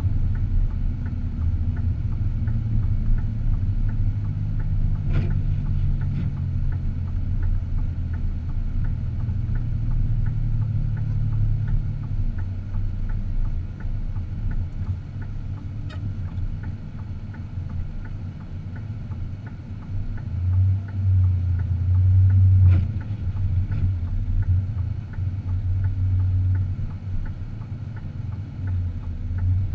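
Car driving: a steady low engine and road rumble that shifts in pitch now and then, with a few faint clicks.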